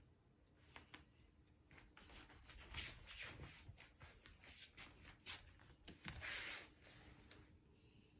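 Dry rustling and scraping in a run of short scratchy bursts, the longest and loudest about six seconds in.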